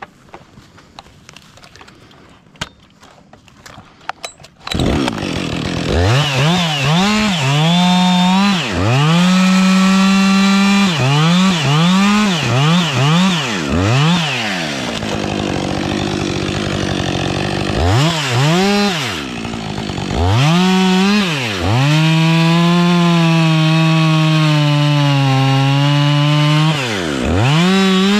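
Gas chainsaw starting up about five seconds in after some handling clicks, then blipped through a string of throttle revs and run at full throttle cutting into the base of a redwood trunk, its pitch sagging under the load. It drops back to idle briefly in the middle, then revs up and cuts steadily again.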